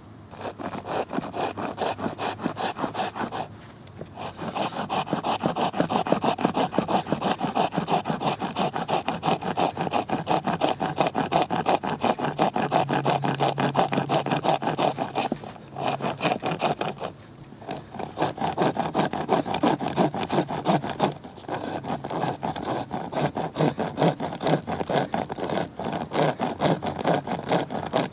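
Pocket chainsaw (a length of saw chain pulled back and forth by two handles) cutting through a small log. A fast, rasping run of strokes as the teeth bite the wood, breaking off briefly three times.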